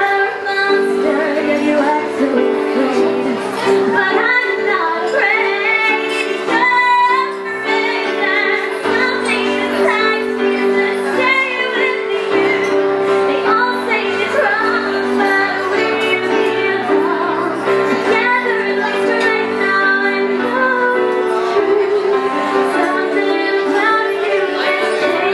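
A woman singing a melody over held chords played on a Casio Privia digital piano, the chords changing every second or two.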